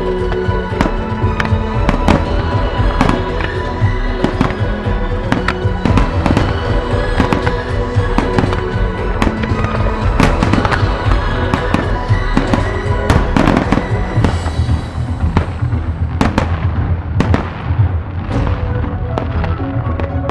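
Aerial firework shells bursting in quick succession, many sharp bangs a second, over loud music playing with the display.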